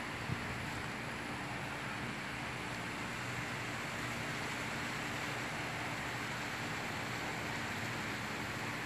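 Steady, even hiss of outdoor background noise with no distinct events, and one brief tap just after the start.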